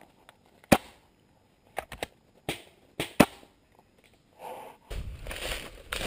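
A scattered volley of sharp pops from paintball markers firing, about seven shots in the first three seconds, some in quick pairs. From about four and a half seconds in, dry leaves and brush crunch and rustle as the player moves over the forest floor.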